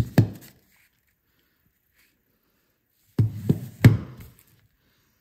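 A short click just after the start, then, about three seconds in, three knocks, the last the loudest, as a Taurus G3C pistol with a weapon light mounted is handled and laid down on a table.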